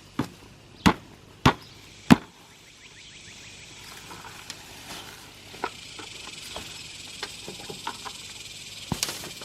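Four sharp knocks about two-thirds of a second apart. They are followed by a steady high hiss with small clicks and scrapes.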